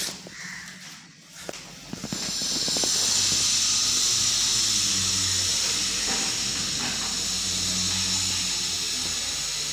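Paint spray gun hissing steadily as it sprays paint onto a wall, starting about two seconds in, with a low hum beneath it. A few knocks come before the spraying starts.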